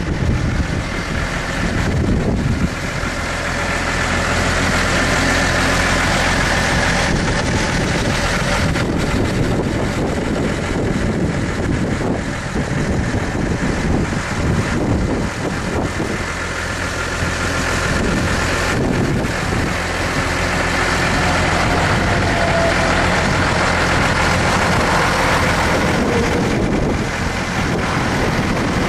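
Case IH Puma 155 tractor's six-cylinder diesel engine idling steadily, with a broad hiss over the engine note.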